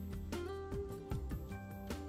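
Gentle instrumental background music: slow, separate notes over a steady low drone.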